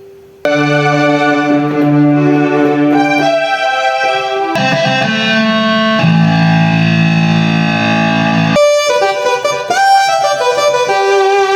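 Electronic keyboard playing held chords and melody notes through several different sampled instrument voices, the sound changing abruptly to a new voice every few seconds.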